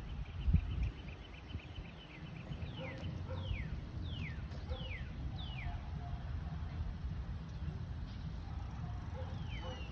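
Wind rumbling on the phone's microphone, with a gust near the start, and a bird singing a run of falling whistled notes, about two a second, from about three seconds in and again near the end.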